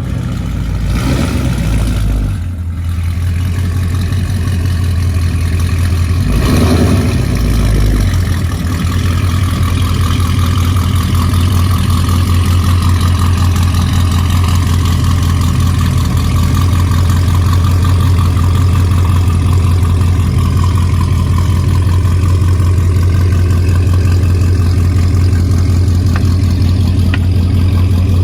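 Dodge Scat Pack's 6.4-litre HEMI V8, fitted with aftermarket headers, running just after start-up. It is unsettled for the first several seconds, then holds a steady, deep idle.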